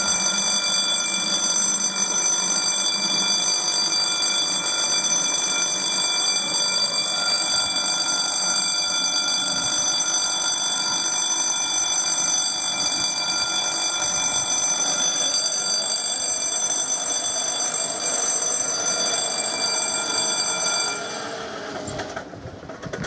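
Level-crossing warning bell ringing steadily, the signal that a train is approaching; it stops about two seconds before the end, once the barriers are down.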